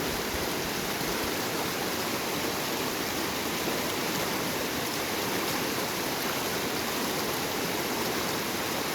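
Water of a small river running steadily: a continuous, even rushing.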